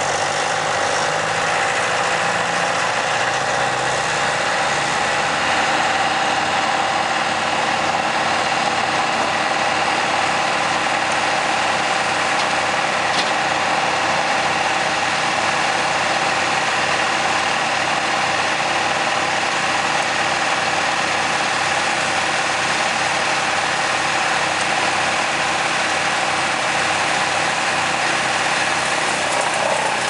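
Bandit wood chipper running at a steady speed with no wood going through: its engine and spinning cutter make a continuous mechanical hum. The pitch rises slightly over the first few seconds and then holds steady.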